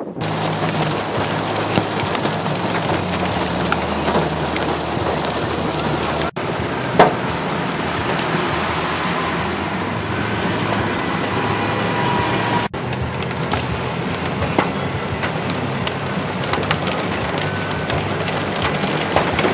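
Heavy rain pelting a moving vehicle, with scattered sharp hits on the body and glass and a low engine and road drone underneath, heard from inside the cabin. The sound cuts abruptly twice.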